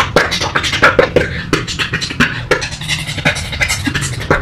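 A woman beatboxing into a cupped hand: a fast, loud run of mouth clicks, pops and puffs, about five or six a second.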